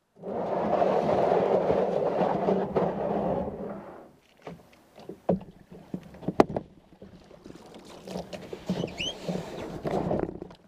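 Plastic kayak hull grinding over gravel as it is pushed off the shore into the water, a loud scraping that fades out after about four seconds. Quieter paddling follows, with water splashing off the blades and a few sharp knocks.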